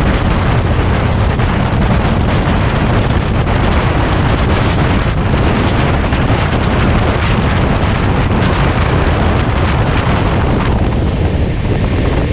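Heavy wind buffeting the microphone of a camera held out of a moving train, over the steady running noise of the train on the rails. The rush is loud and unbroken, thinning a little in its higher part near the end.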